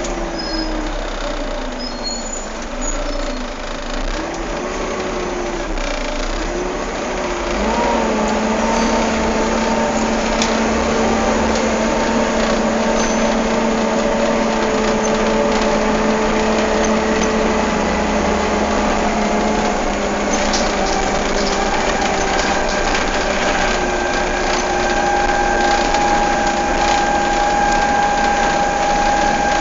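Volvo B7TL bus's engine cooling fan whining over the running engine. Its pitch wavers up and down at first, then rises about a quarter of the way in and holds steady at the higher speed.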